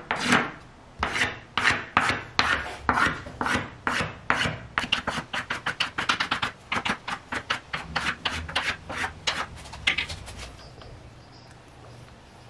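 Iroko wood being abraded by hand in back-and-forth strokes, like sanding or rasping. The strokes come about two a second at first, then quicken to about four a second, and stop a couple of seconds before the end.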